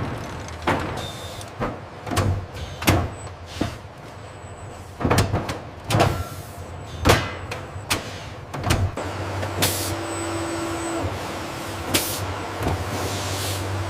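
Production-line machinery: irregular clanks and knocks, then a steady machine hum from about two-thirds in, broken by a few short bursts of hiss.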